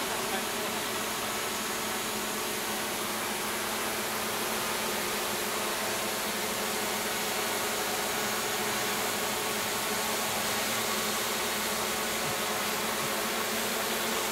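Several small DJI camera drones hovering in formation, their propellers making a steady buzzing hum with several overlapping pitches.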